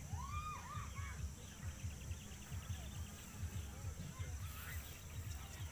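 Wind buffeting the microphone in irregular gusts, with a few faint high calls in the background near the start.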